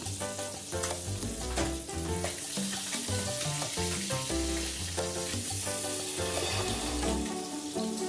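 Background music with a steady bass line and melody, over the steady sizzle of food cooking in a pan.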